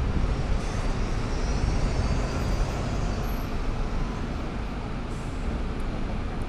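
Scania K410EB6 coach's six-cylinder diesel engine idling at a standstill, a steady low rumble.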